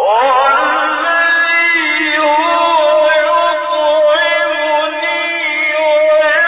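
Solo male voice reciting the Quran in melodic tajweed, starting abruptly from silence with long held notes and ornamented pitch turns.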